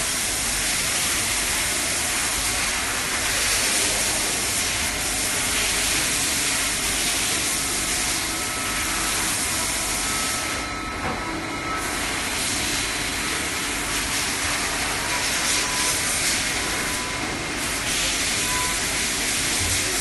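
CNC drilling-milling-tapping machining centre working aluminium profiles: a steady loud hiss with faint whining tones. The high part of the hiss drops away briefly about halfway through and again later.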